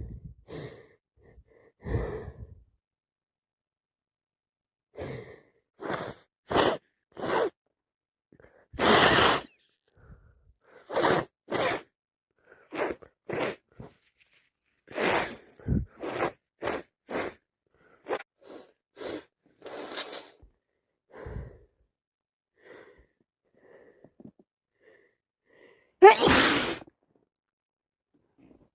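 A woman with a head cold sniffing over and over in short, separate breaths. There are two wet sneezes: one about nine seconds in and a louder one near the end.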